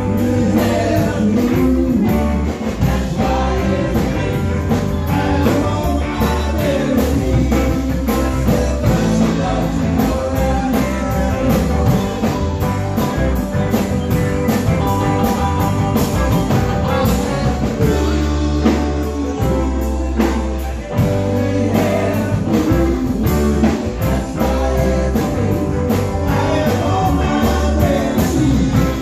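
Live band playing loud electric rock: electric guitars, bass and a drum kit.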